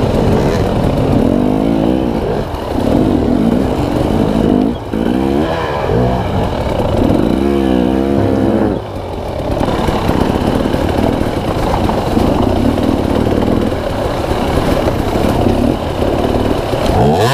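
Dirt bike engine revving up and down repeatedly under throttle, with brief drops off the throttle about five and nine seconds in.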